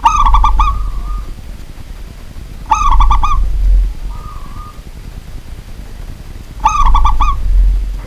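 Caged zebra dove (perkutut) singing: three song phrases, each a quick run of about four cooing notes followed by a softer, drawn-out note.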